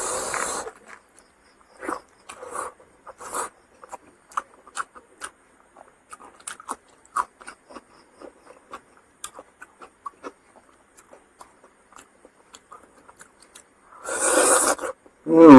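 Close-up eating sounds: chewing and lip smacking as a series of small wet clicks, with a louder rustling burst at the start and another about fourteen seconds in.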